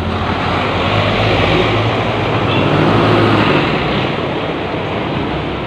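Road traffic noise: a motor vehicle going past, its rushing noise swelling to its loudest about three seconds in and then easing off, over a low engine hum.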